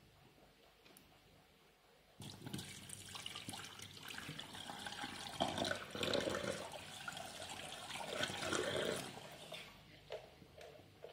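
Water pouring from a plastic bowl and splashing into a stainless steel sink as the rinse water is drained off washed orchid seedlings. It starts suddenly about two seconds in and dies away near the end.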